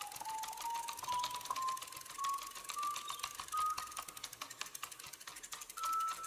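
Cartoon sound effect of a machine's selector cycling: rapid ticking under a beeping tone that climbs in pitch step by step, slowing down like a spinning selector coming to rest, with one last higher beep near the end.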